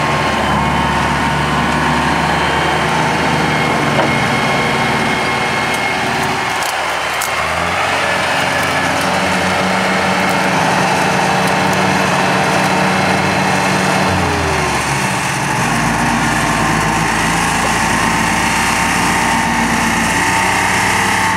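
Farmtrac compact diesel tractor engine running under load while towing a stuck pickup out of mud. Its pitch changes about 7 seconds in and again around 15 seconds.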